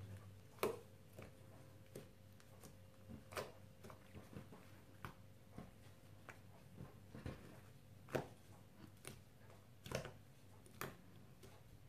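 Slime being kneaded, squeezed and stretched by hand, giving faint, irregular sticky clicks and pops, about a dozen spread through the stretch.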